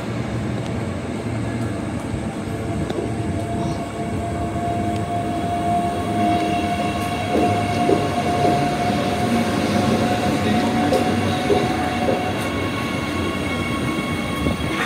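Queensland Rail IMU 100-class electric multiple unit at the platform: a steady hum from the train, with a steady whine that comes in about three seconds in and stops about twelve seconds in.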